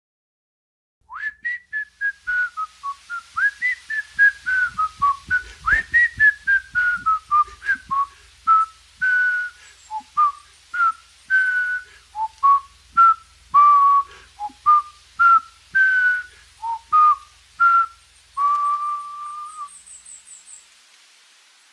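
A person whistling a lively tune: one melody line of short notes, some slid into, ending on one longer held note.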